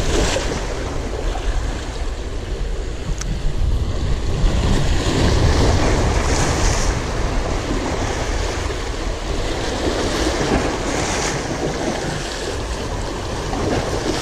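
Sea surf breaking and washing over the boulders of a rock jetty, swelling into louder hissing surges every few seconds, with wind rumbling on the microphone.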